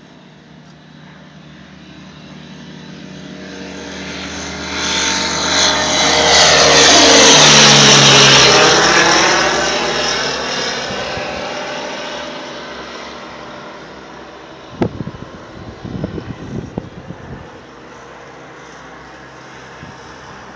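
Single-engine propeller light aircraft flying low overhead: the engine and propeller sound builds, peaks about seven seconds in with its pitch dropping as it passes, then fades away. A short run of low thumps follows near the end.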